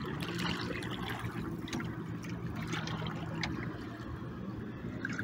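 Sea water trickling and splashing at a pedal catamaran, with scattered light clicks and a steady low hum underneath.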